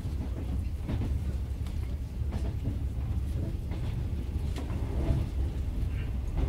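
Interior of a JNR Yokosuka Line electric train carriage while running: a steady low rumble with scattered faint clicks and knocks.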